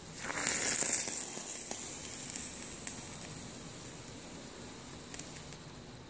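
Water poured over a hot, freshly torch-soldered copper lug on a jumper cable, sizzling with a high hiss and crackles as the metal is quenched. The hiss is loudest at first, fades as the lug cools, and stops just before the end.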